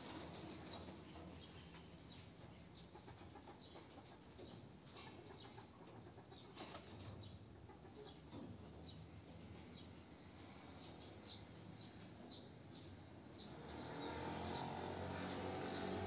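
Domestic pigeons in a wire-mesh loft: faint, scattered wing flaps and light clicks of birds shifting about. From near the end a louder, low cooing sets in.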